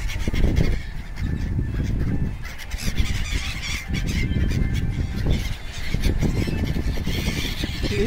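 A flock of gulls calling overhead, harsh squawking calls coming in patches, over a constant low rumble.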